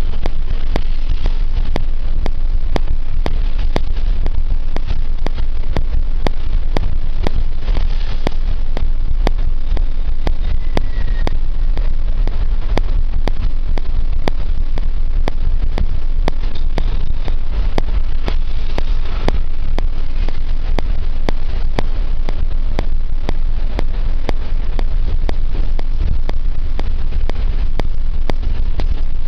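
Steady, loud low rumble of a vehicle travelling at speed, heard from on board: engine and road noise with regular clicks.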